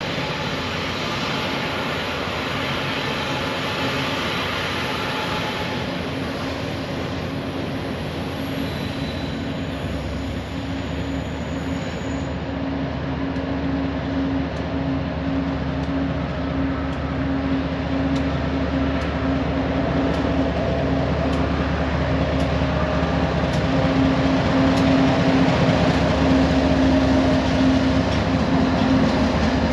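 BNSF diesel locomotives pulling an empty oil train into the yard, their engines running with a steady low note that grows louder as they approach.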